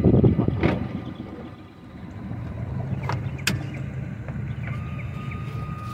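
A boat motor running steadily as a low hum, with a thin steady whine joining about five seconds in. A louder rumble fills the first second, and there are a couple of sharp clicks around the middle.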